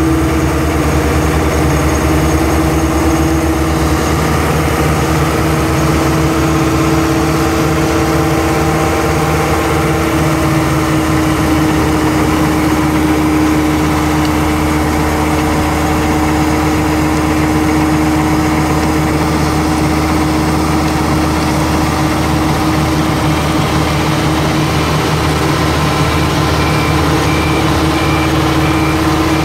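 Metso Norberg CV100 screening plant running steadily under load: its Deutz diesel engine and vibrating screen make a constant drone, with a wheel loader's diesel engine running alongside.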